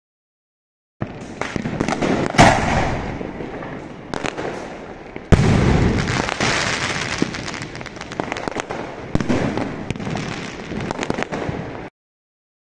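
A 4-inch aerial firework shell (NSV Gilt Palmtree sky shot) firing: a sharp bang about two seconds in, then a louder, deeper burst a few seconds later. It is followed by a long, fading crackle with scattered pops as the effect spreads and falls, and the sound cuts off suddenly near the end.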